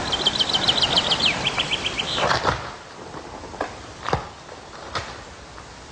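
A small songbird sings one phrase of about two seconds: a fast run of high notes, then a few slower, lower notes, ending in a short flourish. After it come three sharp, isolated clicks.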